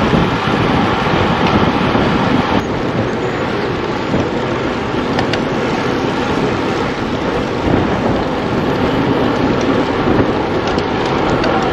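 Wind rushing over the microphone of a handlebar-mounted camera on a road bicycle moving at speed: a loud, steady, dense rumble and hiss.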